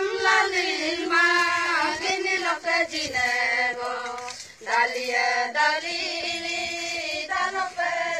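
A group of female and children's voices singing together, holding long notes, with a brief break about halfway through.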